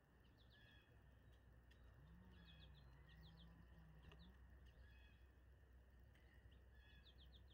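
Faint chirping of small songbirds: a few short clusters of quick, high notes over a low steady hum.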